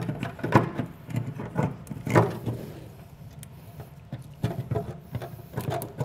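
Plastic wiring plug and wires being worked through a hole in a truck bed wall, knocking and scraping against its edge in irregular clicks and rustles. There are two bursts of handling, separated by a quieter spell in the middle.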